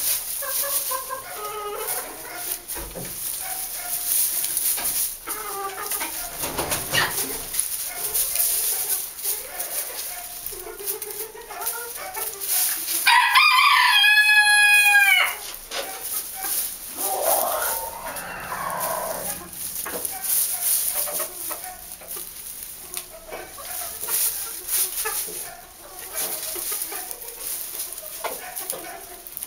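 Polish bantam chickens clucking and calling softly, and a bantam rooster crowing once, about two seconds long and by far the loudest sound, a little before the middle.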